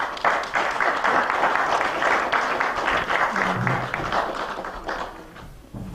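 Audience applauding at the end of a talk: dense clapping that starts at once, holds steady, then dies away about five seconds in.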